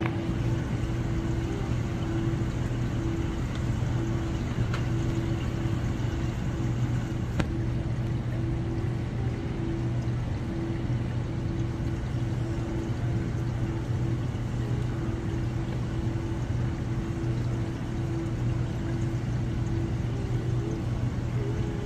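Aquarium pumps humming steadily: a low drone with a fainter, higher tone over a hiss of moving water.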